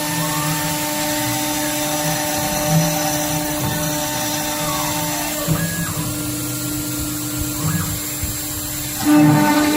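CNC router's spindle running steadily as it mills aluminum, with a steady whine. Short rising and falling tones come and go as the axes move, and there is a louder burst near the end.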